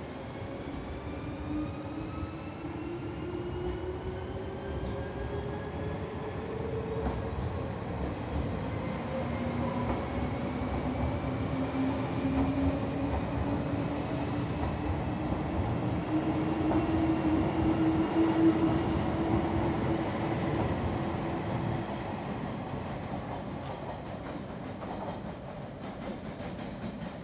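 JR West 381 series electric limited express, nine cars, accelerating away from a station. Its motor whine rises steadily in pitch as it gathers speed, and its wheels clack over rail joints and points. It grows louder as the cars pass, loudest about two-thirds of the way through, then fades as the train draws away.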